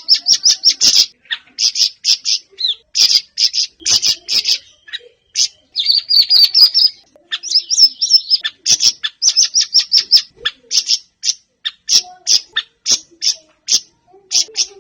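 Siri-siri songbird singing in a fast, busy stream of short high chirps, with brief trilled runs and quick sweeping notes in between.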